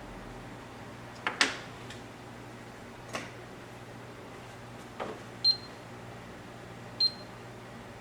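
Several light knocks and clicks of things being handled, two of them with a short high ring in the second half, over a steady low hum.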